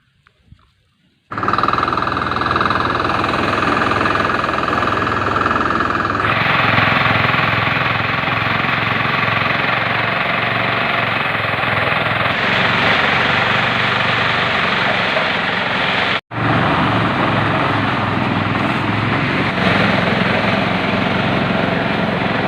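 An engine running steadily and loudly with an even low pulse. It starts abruptly about a second in and cuts out for an instant about two-thirds of the way through.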